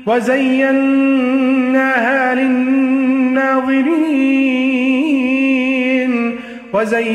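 A reciter's voice chanting Quran verses in a slow, drawn-out melodic style, holding long notes with ornamented turns in pitch. There is a brief pause for breath near the end before the next phrase starts.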